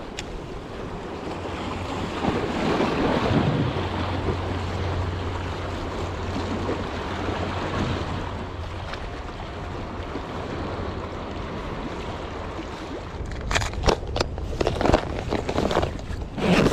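Small waves washing against shore rocks, with wind rumbling on the microphone. Near the end comes a run of short clicks and rustles of close handling.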